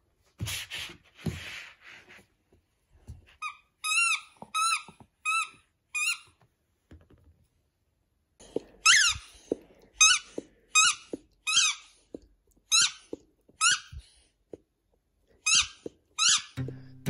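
Rubber squeaky dog toy squeaking in short, evenly spaced squeaks, each rising and falling in pitch, as it is squeezed and chewed. The squeaks come first in a run of four, then after a pause of about two seconds in a longer run of about ten. Two short breathy hisses come just before.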